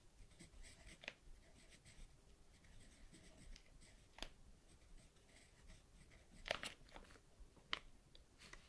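Pen writing by hand on a paper page: faint scratching strokes with a few soft ticks as the tip meets the paper.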